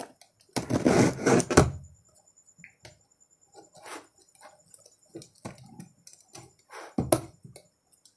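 Box cutter slitting the packing tape along a cardboard carton's seam, with scraping and rustling of the box being handled; a longer scrape in the first two seconds, then short scratches and a sharp knock about seven seconds in.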